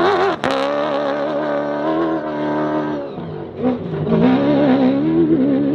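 Toyota Hilux rally-raid car's engine revving hard at full throttle while it slides through a dirt corner. The revs waver, drop briefly about three seconds in, then climb again.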